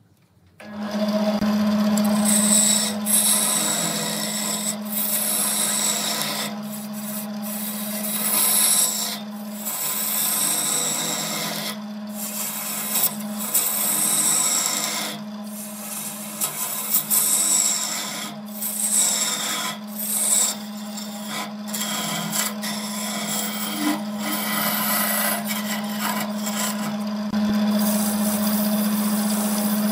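Wood lathe running with a steady hum while a hand-held turning tool cuts the spinning wooden vase blank. The shavings come off in a loud scraping hiss that starts just under a second in and breaks off briefly, again and again, as the tool lifts from the wood.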